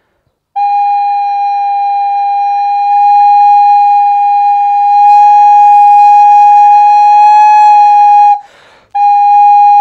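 Recorder with its foot joint removed sounding one long steady note at a single pitch. The player is working the breath pressure up and down to find where the pipe rings, and the note gets louder about halfway. Near the end the note stops for a quick breath and the same note comes back.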